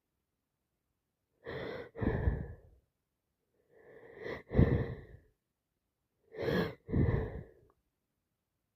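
A person with a common cold sneezing three times, a couple of seconds apart, each sneeze a quick in-breath followed by a loud burst.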